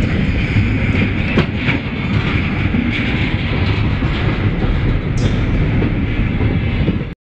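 Freight train of bulkhead flatcars rolling past close by, with steel wheels clattering over the rail joints over a steady rumble. There are a couple of sharp clanks about a second and a half in and a brief high squeak a little after five seconds. The sound cuts off suddenly just before the end.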